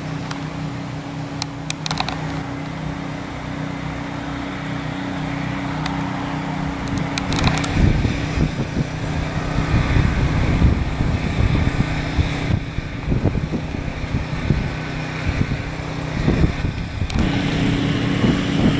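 Steady engine hum. From about seven seconds in it gives way to a louder, rough low rumble with gusts of wind on the microphone, and the steady hum returns near the end. A few light clicks are heard in the first seven seconds.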